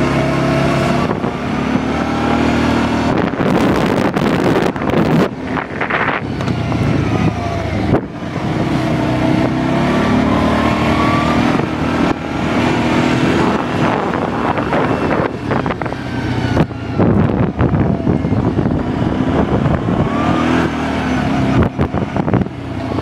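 Kawasaki Prairie 700 ATV engine running under way, its pitch rising and falling as the throttle is opened and eased, with stretches of rushing noise.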